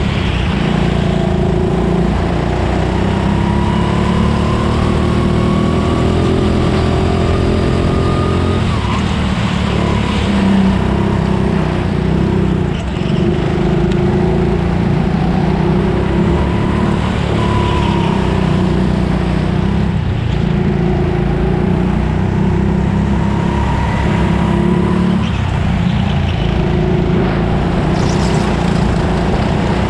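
Onboard sound of a racing go-kart's engine under way, climbing in pitch for several seconds, dropping sharply about eight seconds in, then rising and falling again and again as the kart accelerates out of corners and brakes into them.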